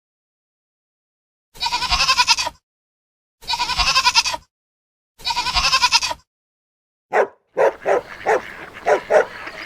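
A goat bleats three times, each bleat a wavering call about a second long. Near the end a dog starts a quick run of short yapping barks.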